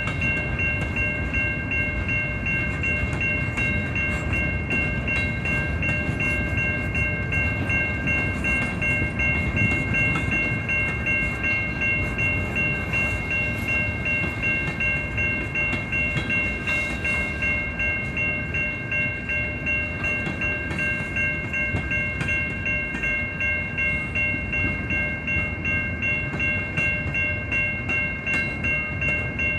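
Freight train cars rolling past on steel rails, a continuous low rumble with a regular pulsing clatter. Steady high ringing tones run throughout, consistent with a level-crossing warning bell.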